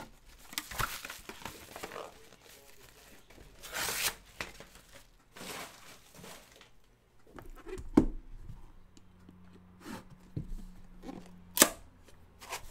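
Plastic shrink wrap being torn and crumpled off a trading-card box in several short rustling bursts, followed by two sharp knocks as the box is handled and its lid opened, the second the loudest.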